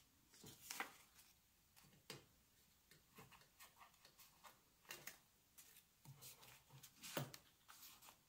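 Quiet rustling and crinkling of polymer banknotes being gathered and handled, with scattered light clicks and taps from handling cash on the table, loudest about a second in and again near the end.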